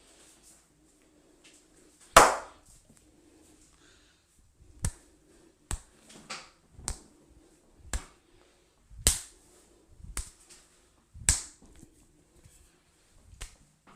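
Hand slaps during a head massage: about ten sharp smacks at irregular intervals, the first, about two seconds in, the loudest.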